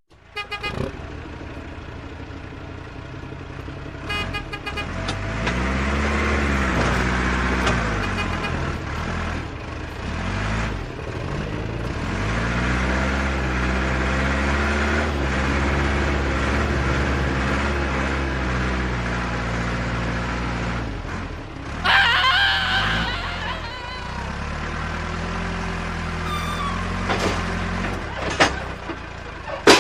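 Truck engine running, its pitch rising and falling again and again as it revs, with a brief, harsher burst about twenty-two seconds in.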